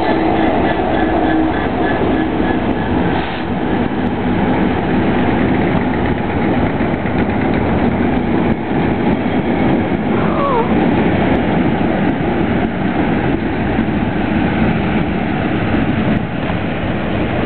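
A line of locomotives rolling slowly past along a station platform: a loud, steady rumble of engines and wheels on the rails, with a short falling squeal about ten seconds in.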